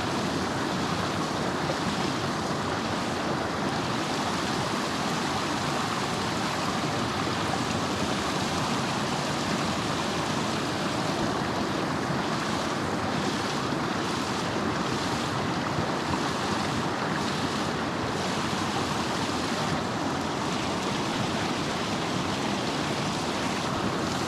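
Steady rush of a small river's flowing water, an even noise that holds level throughout.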